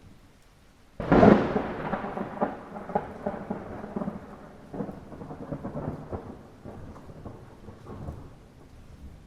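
A thunderclap in light rain: a sudden sharp crack about a second in, then a long rolling rumble that slowly fades, over a soft hiss of rain.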